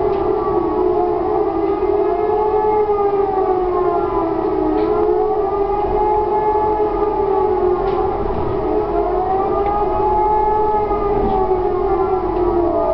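Electromechanical civil-defence sirens of the E57 type howling the German 'Warnung' signal in a test alarm. Several sirens overlap, each rising and falling in pitch over a few seconds, out of step with one another. Near the end one siren's pitch starts to fall away.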